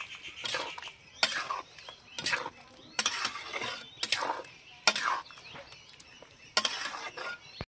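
A flat metal spatula scraping and clacking against a metal kadhai as pasta is stirred through a thin, wet white sauce, in repeated strokes about one to two a second. The sound breaks off suddenly near the end.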